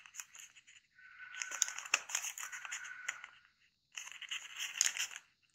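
Sheet of thin kami origami paper crinkling and rustling as it is folded and creased by hand, in two spells of handling with a short pause between and a sharp crack about two seconds in.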